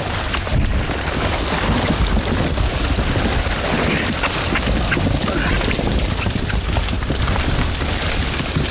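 A cast net packed with mullet, the fish thrashing and splashing in a dense patter of quick slaps over a steady rumble of water and wind.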